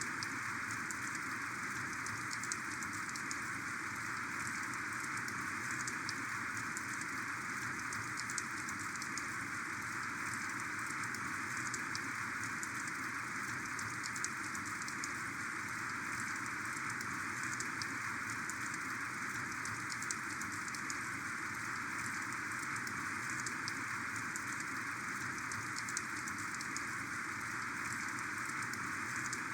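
Heavy rain falling steadily: an even, dense hiss with scattered sharper drop ticks.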